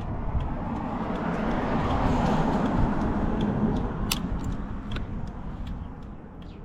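Engine running, swelling louder over about two seconds and then fading away, with light ticks throughout.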